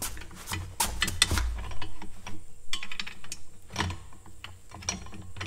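Cast-iron parts of a Dempster windmill hand pump clicking and clanking as its handle linkage and pump rod are shifted and refitted by hand: a run of sharp metal clicks and knocks, thickest about a second in, with another strong knock near the end.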